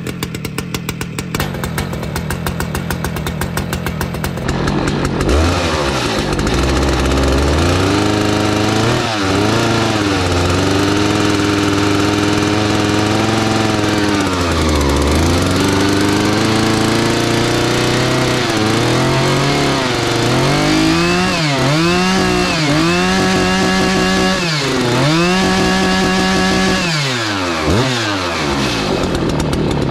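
Stihl MS 881 chainsaw's 121.6 cc two-stroke engine, brand new and being run in: it idles steadily for a few seconds, then is revved up and down over and over, with a run of quick throttle blips near the end.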